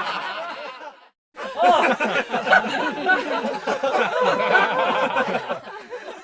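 Recorded laughter fading out, a brief gap of silence about a second in, then several people laughing together, many voices overlapping, dying away near the end.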